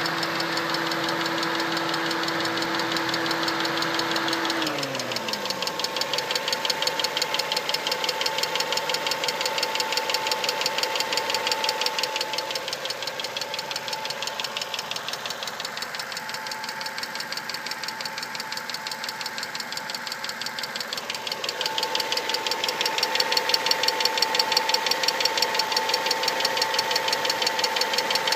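1992 Mazda 626's 2.0L 16-valve four-cylinder petrol engine running warm, with a fast, even ticking from the engine, the ticking getting louder near the end.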